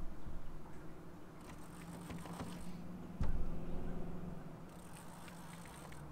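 Fishing reel cranked in spells while a fish pulls against a bent rod, with a sharp thump a little after three seconds in and a steady low hum underneath.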